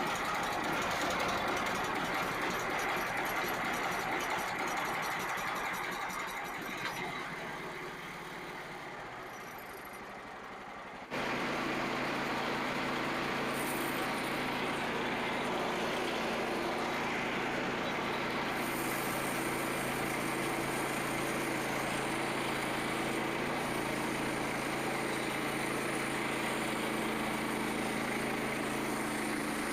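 Frontier OS27 portable sawmill's engine running. It dips quieter from about seven seconds in, then comes back suddenly about eleven seconds in and holds a steady idle with an even hum.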